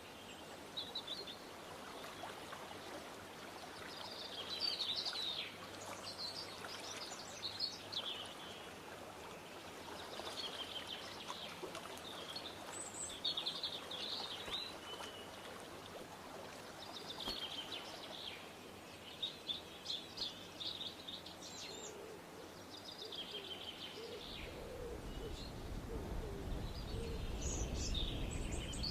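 A songbird singing short chirping phrases, one every two to three seconds, over steady background hiss. A low rumble rises in the last few seconds.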